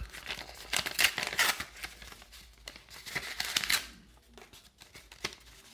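White paper envelope being torn open and handled: a run of tearing and crinkling rustles for about four seconds, then a few fainter rustles and clicks.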